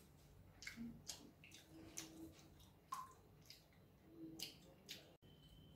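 Near silence broken by faint, scattered wet clicks and smacks of a man chewing a mouthful of food and eating from a spoon.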